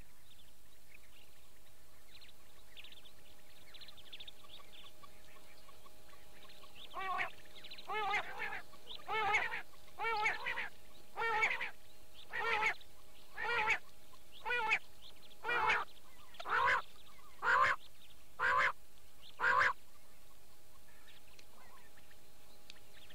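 Recorded quail calls: after several seconds of steady hiss with a faint hum, about a dozen calls come about one a second, each a little louder than the one before, then stop.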